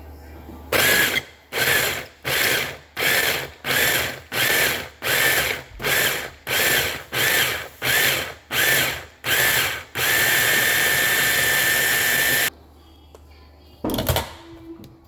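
Electric blender pulsed about a dozen times in short, even bursts, then run steadily for about two and a half seconds before it stops, chopping vegetables into very small bits. A single knock follows near the end.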